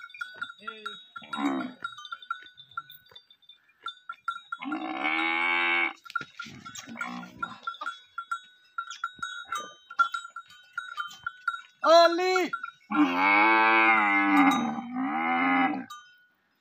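Camel calling with long, low, drawn-out groans: one at about five seconds in, a short call near twelve seconds, then a longer run of calls that stops just before the end.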